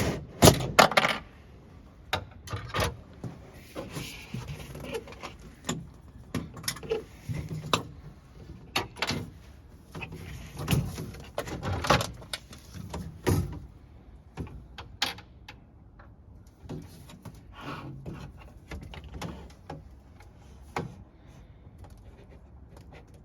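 Irregular clicks, knocks and light rattles of hard parts being handled, busiest in the first half and growing sparser and fainter near the end.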